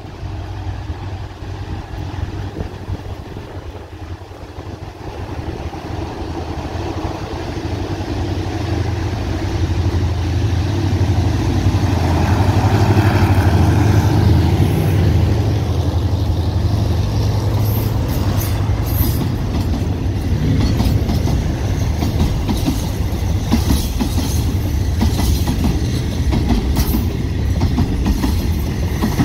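GEA-class diesel-electric locomotive hauling a container freight train approaches and passes, its low engine drone swelling to its loudest about halfway through. The container wagons then roll by with a steady clickety-clack of wheels over the rail joints.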